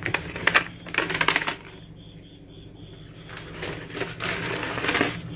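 Paper cover crinkling and rustling with sharp crackles as it is handled and pulled off a plastic bucket. It comes in two spells, with a quieter gap of about two seconds between them.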